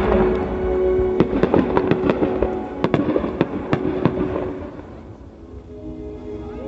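Fireworks popping and crackling over recorded music, with many sharp pops in the first four seconds. After about four and a half seconds the pops die away and the music goes on more quietly.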